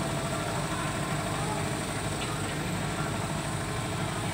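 An engine idling steadily, with faint voices in the background.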